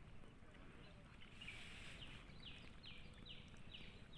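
A bird calling a short, high note that falls in pitch, repeated about five times at roughly two a second from about halfway in, over a faint low outdoor rumble.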